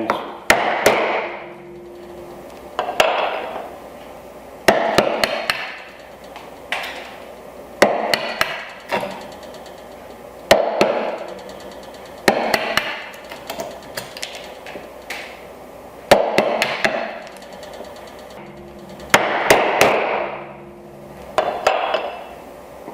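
Mallet striking a chisel to chop the waste out of dovetail sockets in wood: single sharp knocks spaced one to three seconds apart, about a dozen in all.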